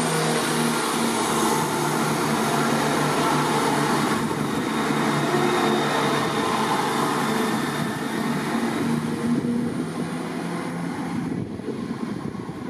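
ScotRail Class 170 Turbostar diesel multiple unit running, its underfloor diesel engines giving a steady drone, growing quieter near the end.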